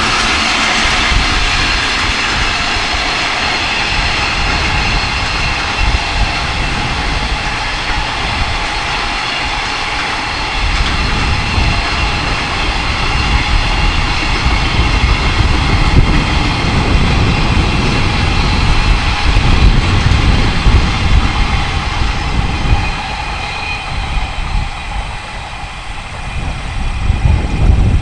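Electric-hauled freight train running past: a steady rolling roar with ringing tones from the wheels and rails. Strong wind buffets the microphone with heavy low rumbling gusts, stronger from about ten seconds in.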